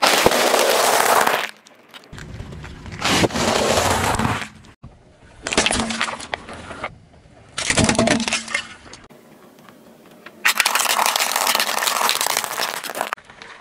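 A car tyre rolling over and crushing things in a run of short clips: crunching and cracking that breaks off sharply at each cut, about five times. The crushing includes a bag of dry noodles and a pile of dry spaghetti snapping under the tyre.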